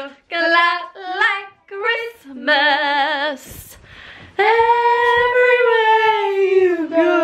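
Young women singing loudly with a wavering vibrato: a few short phrases, then one long held note from about four and a half seconds in.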